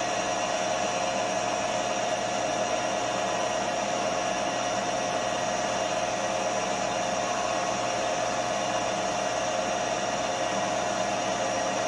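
Milling machine spindle running steadily, a constant whine over motor hum, while an edge finder in the spindle is used to locate the workpiece edge.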